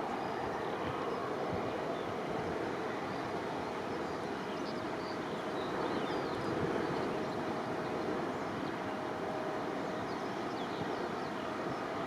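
Airbus A319 airliner on approach, heard from a distance as a steady engine rumble with a faint held tone. Small birds chirp faintly throughout.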